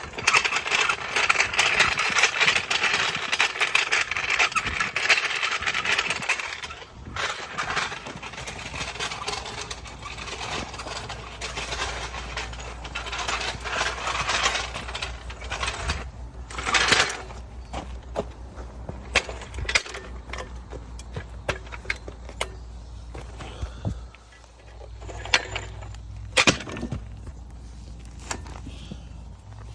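Hands-on work under a pickup with a floor jack and the fuel tank: several seconds of loud scraping, then scattered metallic clanks and knocks.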